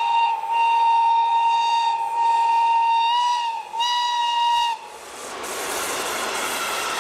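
A locomotive horn sounds one steady high note in long blasts of a second or more, broken by short gaps. Near the end the horn stops and a passing train's wheel and rail noise takes over.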